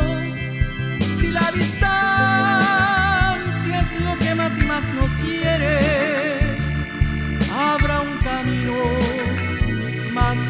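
A band playing an instrumental break of a romantic ballad: bass line and drums under a wavering, vibrato-laden lead melody.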